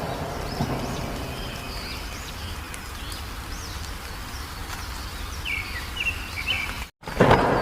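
Wild birds chirping and calling in short, high, arched notes over a steady low outdoor background noise. Near the end the sound cuts out for an instant, as at an edit, and comes back louder.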